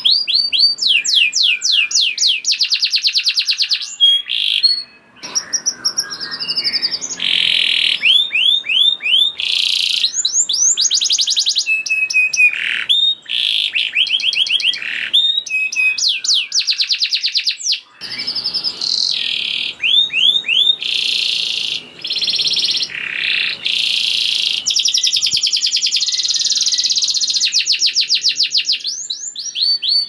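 Yellow domestic canary singing a long, busy song of fast trills and rolls, high-pitched runs of rapidly repeated notes that change phrase every second or two, with brief breaks about five and eighteen seconds in.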